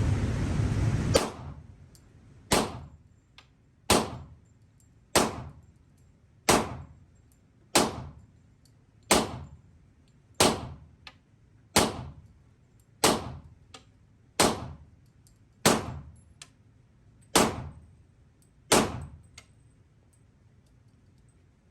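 A .40-calibre handgun fired at a slow, steady pace at an indoor range: about fourteen single shots, roughly one every second and a quarter, each with a short echoing tail.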